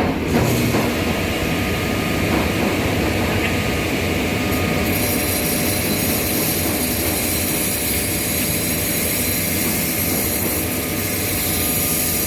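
Steady mechanical hum and rushing noise from running machinery, joined by a louder high hiss about five seconds in.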